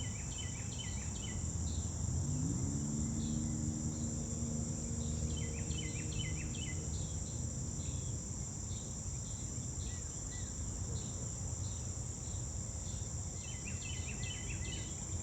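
A steady, high-pitched insect chorus with a few brief bird chirps in short bursts. A low hum rises in pitch about two seconds in, holds, and fades out about halfway through, over a constant low rumble.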